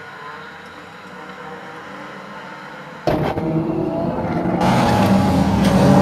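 Oval-racing cars' engines: faint and distant at first, then about three seconds in the sound jumps abruptly to a pack of race cars running close by, engines loud and revving through a bend.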